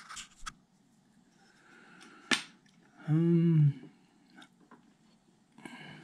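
A single sharp click of metal belt buckles being handled on a wooden tabletop, followed about a second later by a man's short hummed 'mm'.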